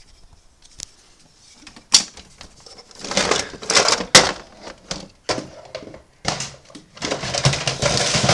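Plastic toy vehicles clattering and knocking together as hands rummage through a box of them, with sharp clicks about two and four seconds in and two longer bouts of rattling.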